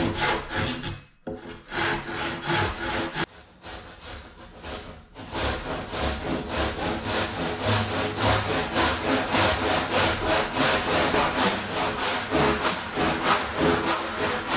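Hand saw cutting into a log with steady back-and-forth strokes, about three a second. The sawing breaks off briefly about a second in, goes quieter for a couple of seconds, then runs loud and even until it stops at the end.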